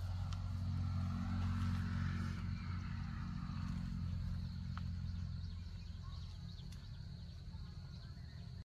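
A low engine hum, steady in pitch, that slowly fades away.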